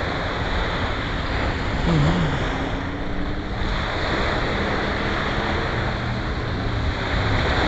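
Ocean surf washing onto the beach in a steady rush, with wind blowing across the microphone.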